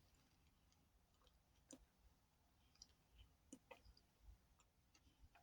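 Faint, irregular crunchy clicks of someone chewing toasted powdered starch chunks, the mouth sounds of eating between hums.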